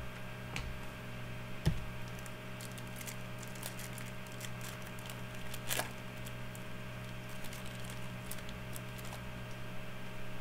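Hockey trading cards being handled and sorted by hand: scattered light clicks and rustles of card stock, with a single louder knock a couple of seconds in.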